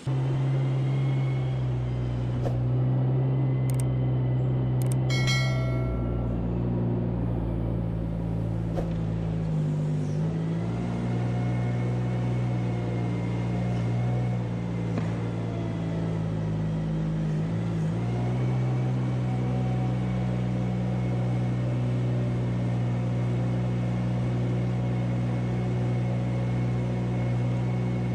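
Engine of a farm vehicle running steadily under load, dipping briefly in speed about ten and eighteen seconds in. A short high squeal rings out about five seconds in.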